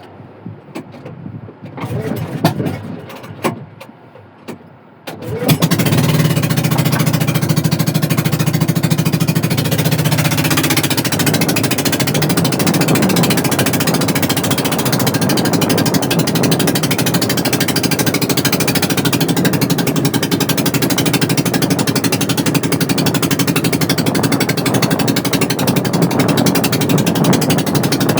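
Small boat engine starting about five seconds in, after a few knocks and handling noises, then running steadily with a fast, even chugging beat.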